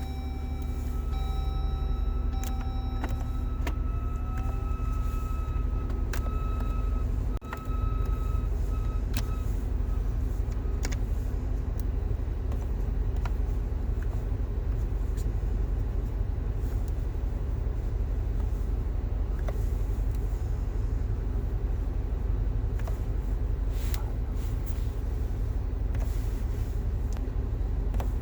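2019 Jeep Wrangler JL engine running cold, a steady low rumble with faint scattered clicks. A few thin steady whining tones fade out within the first several seconds, and the sound drops out briefly about seven seconds in. This is the cold-engine noise the owner is documenting.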